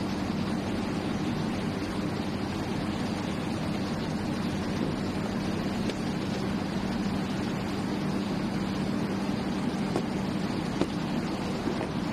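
Steady mechanical hum over a broad rushing noise, unchanging throughout, with a couple of light clicks near the end.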